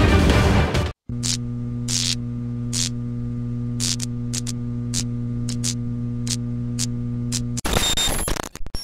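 Steady electrical buzz of a neon sign, with irregular crackles of static. Music cuts out about a second in, just before the buzz starts, and a dense noisy sound takes over near the end.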